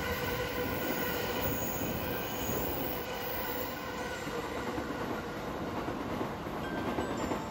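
Electric commuter train moving past a station platform: steady noise of wheels on the rails with faint steady whining tones above it.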